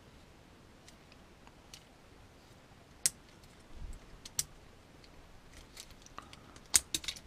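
Scattered sharp plastic clicks and light taps from handling a Mini-Z RC crawler and its transmitter, a few faint ones at first and the loudest bunched near the end. No motor runs: the drive does not work.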